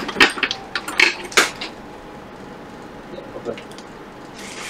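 Small hard clicks and taps from hand-work on an opened iPhone XR: parts pressed down by fingers and handled with metal tweezers. A quick run of sharp clicks in the first second and a half gives way to quieter handling, and a steady hiss starts near the end.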